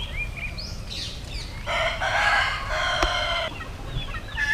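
A rooster crowing once, a long call of nearly two seconds near the middle, with a few short, high rising chirps before it.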